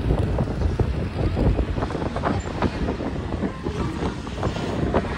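Vehicle driving over a rough road: a steady low rumble with rapid, irregular rattles and knocks.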